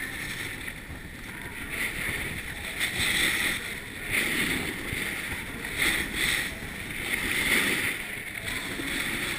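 Skis scraping and carving on snow, the hiss swelling with each turn about once a second, with wind rushing over the microphone.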